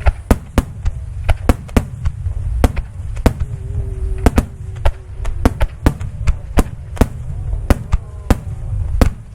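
Fireworks display: a rapid, irregular run of sharp shell bursts, about two a second, over a continuous low rumble.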